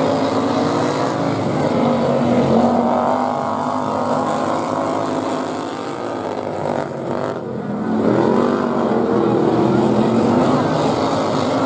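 Several racing lawn mowers' small engines running hard, their pitch rising and falling as they lap. The sound eases off a little past the middle, then revs up again.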